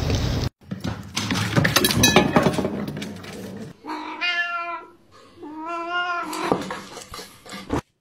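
Tabby cat meowing twice, two drawn-out meows about a second each, about halfway through. They come after a few seconds of rustling and clicking noise.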